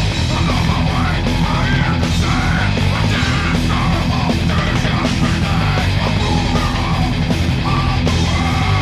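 Thrash metal band playing at full volume: distorted guitars, bass and drums driving steadily, with a singer shouting the vocal line over them.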